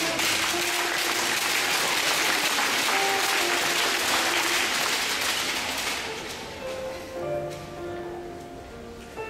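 Audience applauding, dying away after about six seconds, with instrumental music playing underneath that becomes clear as the clapping fades.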